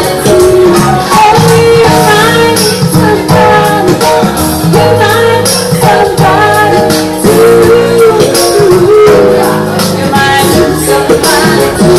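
A woman singing lead vocals with a live jazz band of electric bass guitar and keyboard, over a steady beat.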